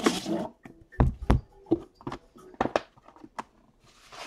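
Aluminium Panini Flawless briefcase and its outer box being handled on a table. A short sliding scrape opens it, then two heavy thunks about a second in, then a few sharper clicks and taps.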